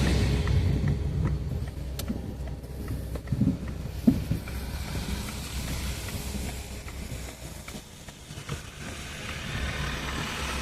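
A car driving, heard from inside the cabin: a steady low engine and road rumble with a few light clicks and knocks, easing off as the car slows near the end.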